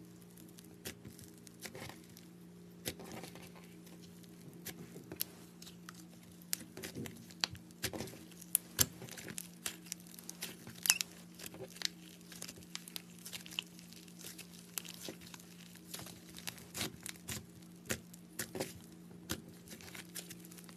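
Slime being kneaded and mixed with clay by hand, with many small irregular sticky pops and crackles. A steady low hum runs underneath.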